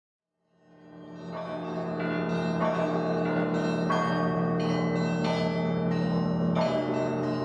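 Music fading in about half a second in: bell-like chiming notes struck over held low tones.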